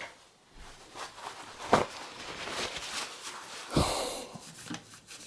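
Wiping and rubbing noise while cleaning a computer part, with two short clicks: one about two seconds in and one near four seconds.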